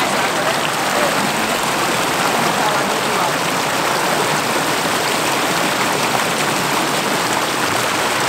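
Floodwater rushing steadily over the top of a rain-filled pond's wall, a constant churning flow: the pond is overflowing after heavy rain.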